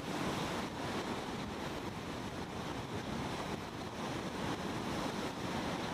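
Steady rushing noise of moving water, with wind on the microphone.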